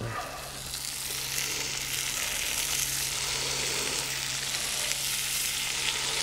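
Cubes of butter sizzling and spitting as they drop into a very hot cast-iron skillet around a seared steak, the sizzle building over the first second and then holding steady.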